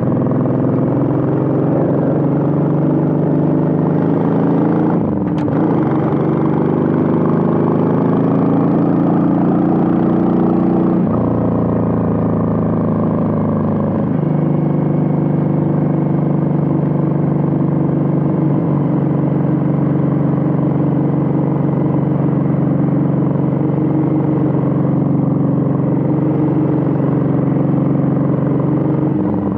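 Suzuki VL800 Volusia's V-twin engine and exhaust under way, pulling up through the gears. The pitch climbs, drops at a shift about five seconds in with a short click, climbs again and drops at another shift about eleven seconds in, then holds steady at cruising speed.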